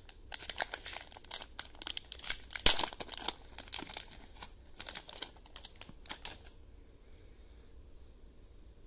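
Wrapper of a 2020 Topps Stadium Club baseball hanger pack crinkling and tearing as the pack is opened: a quick run of sharp crackles that stops about two-thirds of the way through.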